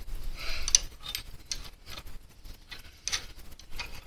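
Scattered metallic clinks and scrapes of a hand wrench working a motorcycle's chain adjuster bolt, with a cluster in the first second and another about three seconds in.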